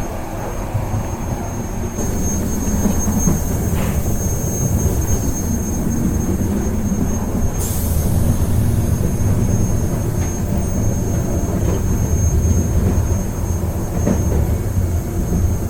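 Train in motion: a steady low rumble from the wheels and carriage on the track. A thin, constant high whine sits above it, and a brief hiss comes a little past halfway.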